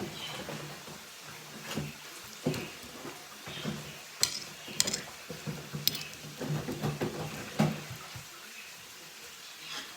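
Tableware clinking and knocking: several sharp clinks, the loudest a few seconds in and again near the end, among softer handling sounds.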